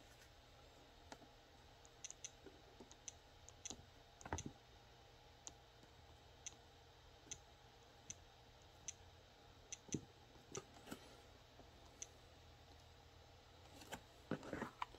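Faint, irregular clicks of a plastic stylus tapping on the Palm VIIx PDA's touchscreen, a dozen or more taps spread unevenly, a couple of them louder.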